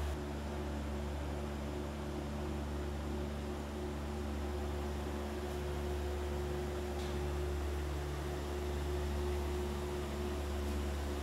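Steady drone of sawmill line machinery, electric drive motors and reduction gearboxes running: a deep hum with several steady higher tones above it and a faint hiss.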